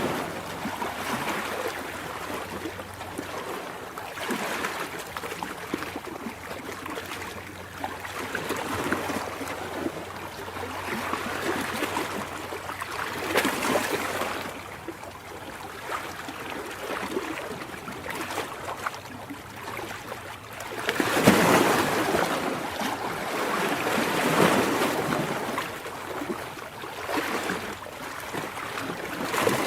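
Ocean surf: waves breaking and washing in as a continuous rushing wash that swells in slow surges. The biggest wave comes about two-thirds of the way through.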